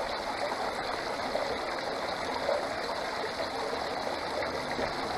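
Steady rush of water running down a gold sluice box and pouring off its end, splashing into the tub below.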